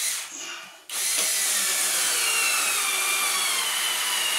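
Cordless drill-driver running under load, driving a screw into soft pallet wood. It starts about a second in and runs steadily, its motor whine falling slowly in pitch as it slows.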